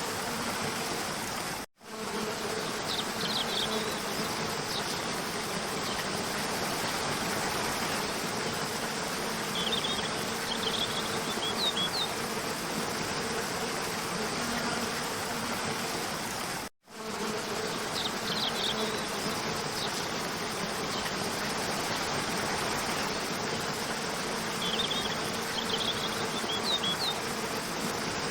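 Rushing stream water splashing over rocks, a steady hiss with a faint steady hum under it and a few short, high chirps. The sound cuts out completely for a split second twice, about two seconds in and again about seventeen seconds in, where the looped recording joins.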